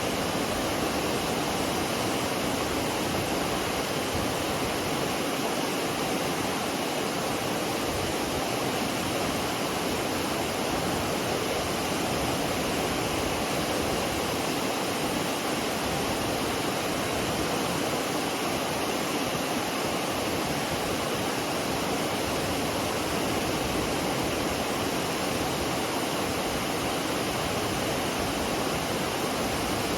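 McCloud Falls: the waterfall's falling water makes a steady, even rushing that does not change.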